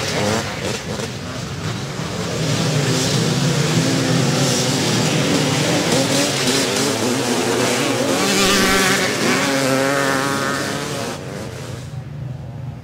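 A pack of vintage twin-shock motocross bikes racing past, many engines revving together through a corner. It gets louder about two seconds in and drops away near the end.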